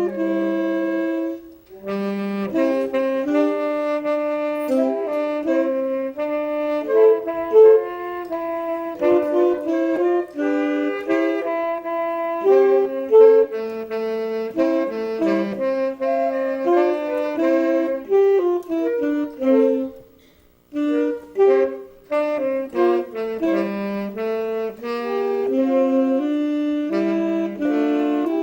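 Instrumental music: a busy melody of quick, changing notes, with a brief break about 20 seconds in.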